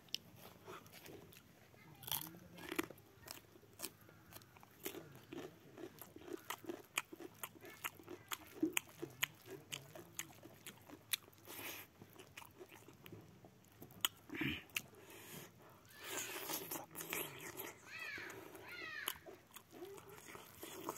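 Close-up mouth sounds of a man eating pork and rice by hand: chewing with many sharp wet clicks and lip smacks. Between about sixteen and nineteen seconds in, a few short rising-and-falling calls sound over the chewing.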